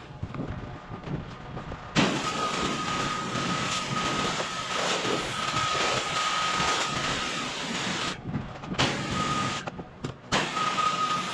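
Pressure washer spraying: a loud hiss of water with a steady high whistle starts about two seconds in over the running machine, stops twice briefly near the end as the spray is shut off, and resumes.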